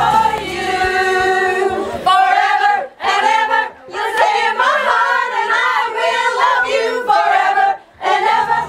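A small group of people, mostly women, singing together unaccompanied, phrase by phrase with short breaks between. A backing music track fades out in the first two seconds.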